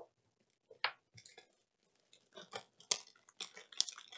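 Paper rustling as an instruction sheet is moved, then the crackle of a small plastic zip bag of electronic components being handled, with scattered light clicks.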